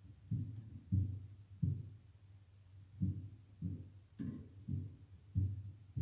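A small cage bird pecking at seed in a plastic feeder, heard as about eight dull, muffled thumps at irregular intervals, one with a sharper click about four seconds in.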